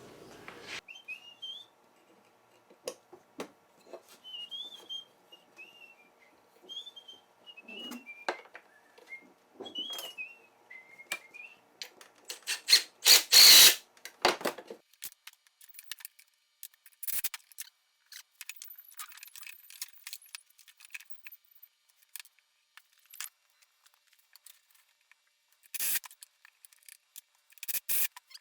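A man whistling a wandering tune for about twelve seconds, over scattered clicks and knocks of hands handling wood, parts and tools. About thirteen seconds in there is one loud burst lasting about a second, with shorter loud bursts near the end.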